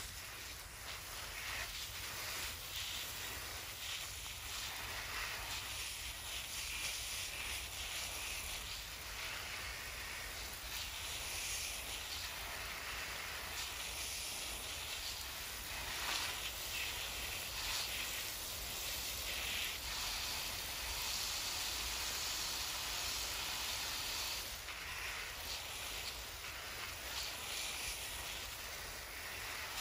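Water spraying from a garden hose onto the soil of a raised bed: a steady hiss that swells a little now and then as the spray moves, watering in freshly planted seedlings.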